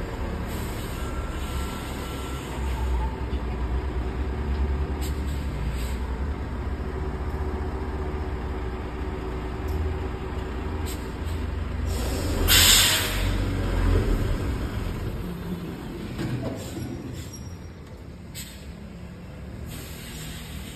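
Heavy truck's diesel engine running slowly as it manoeuvres, with one sharp hiss of compressed air from the air brakes about twelve seconds in, the loudest moment. The engine rumble eases off near the end.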